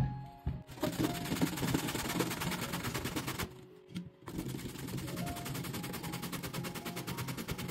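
Zucchini being grated on a metal box grater: a rapid rasping scrape in two runs of about three seconds each, with a short break between them.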